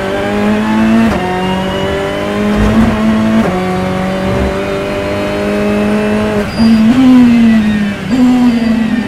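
Ferrari 488 race car's twin-turbo V8 heard from inside the cockpit, pulling hard through the gears. Its pitch climbs steadily and drops sharply at upshifts about a second in and again about three and a half seconds in. Near the end it jumps up twice and falls away, as on downshifts.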